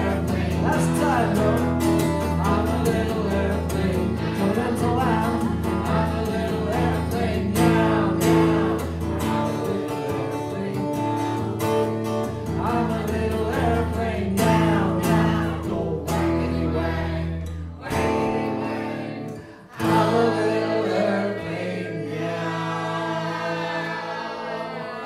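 Live acoustic guitar strummed while a group of voices sings along, with long held notes. The music drops away briefly twice near the end.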